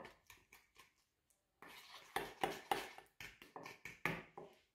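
A metal utensil scraping and clicking against a small stainless steel bowl as butter is stirred and mixed, a quick run of small clicks that grows busier after the first second and a half.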